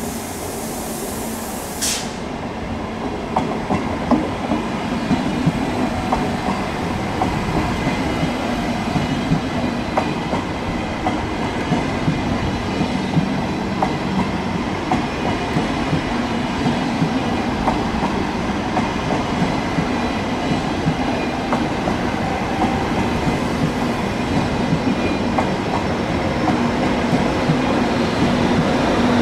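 ÖBB Railjet passenger train rolling past at low speed: a steady rumble of wheels on rail with many sharp clicks as the bogies cross rail joints and points, slowly growing louder. A brief hiss in the first two seconds.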